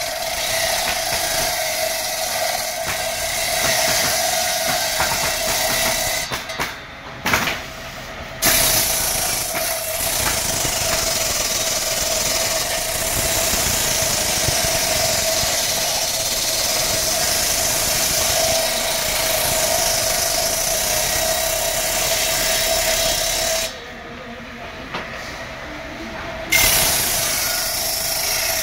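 Homemade table saw running, its circular blade spinning with a steady whine and a hiss. Twice the sound drops away for a couple of seconds before returning.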